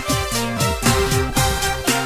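Electronic background music with a steady beat and repeated falling bass slides.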